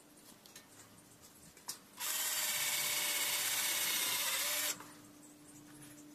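Cordless drill-driver running under load for about two and a half seconds, working into the steel angle-profile frame, with a steady motor tone; it starts about two seconds in after a small click and stops abruptly.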